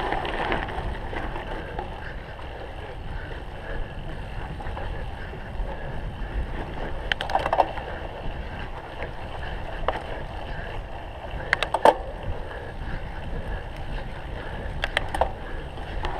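Cyclocross bike being ridden hard over rough ground: steady tyre and frame rumble with wind on the microphone, broken by a few sharp rattling clicks about halfway through, near twelve seconds in and near the end.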